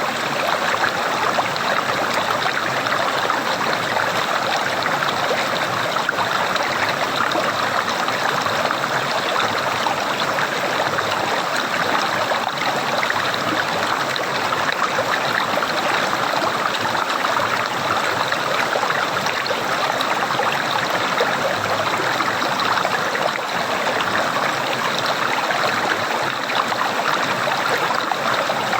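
Water in a small stream gurgling and trickling steadily, with no break or change.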